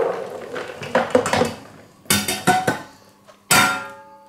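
Stainless steel cooking pot clanking against the steel sink and bowl as it is handled and tipped, about four knocks, the last and loudest ringing on briefly.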